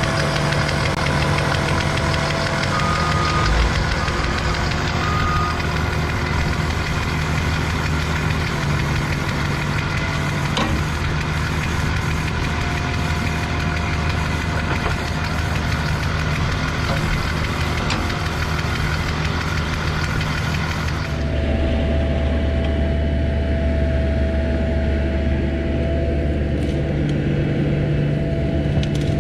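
Diesel excavator engine running steadily during backfilling, with a dense, noisy working sound on top that cuts off abruptly about two-thirds of the way through, leaving the engine running alone.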